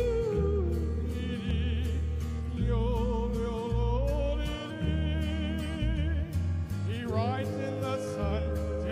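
A man sings a wordless, yodel-style cowboy refrain with wide vibrato and quick upward leaps in pitch about seven seconds in. Behind him is a country accompaniment with a steady bass line.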